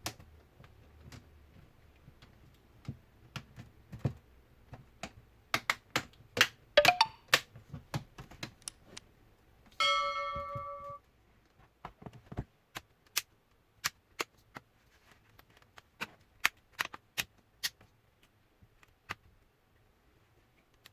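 Irregular plastic clicks and snaps as the laptop's display frame and back cover are pressed shut, loudest around the middle. About ten seconds in there is one steady electronic beep lasting about a second.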